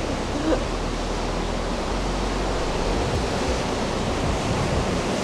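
Sea surf breaking on the rocks below a cliff: a steady rushing wash, mixed with wind.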